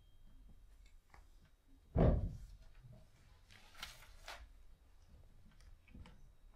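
Sparse small clicks and knocks, with one loud low thump about two seconds in that rings down, and a short hiss around four seconds in.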